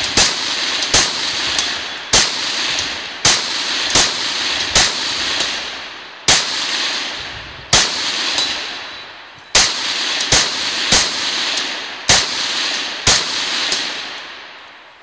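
Rifle shots in a rapid string, about thirteen at an uneven pace of roughly one every second, each trailing a long echo that dies away after the last shot.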